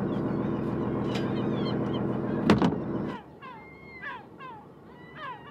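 Steady drone of a fishing boat's engine, with a sharp loud cry about two and a half seconds in. Just after three seconds the engine drops out, leaving gulls calling repeatedly in short cries that fall in pitch.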